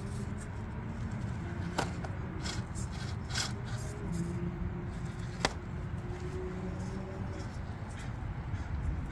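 A small 1/18-scale RC rock crawler's brushed 370 motor and drivetrain whining faintly, the pitch rising and falling with throttle as it creeps over rocks. A few sharp clicks of tyres or chassis knocking on rock, the loudest about five and a half seconds in, over a steady low rumble.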